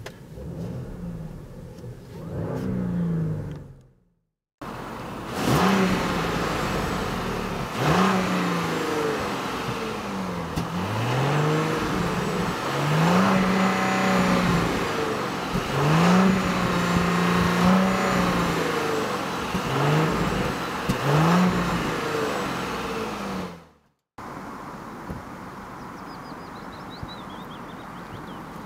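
Audi Q7 55 TFSI e's 3.0-litre turbocharged V6 petrol engine revved repeatedly while parked, heard from behind at exhaust height: a series of throttle blips, each rising, held briefly at high revs and dropping back to idle.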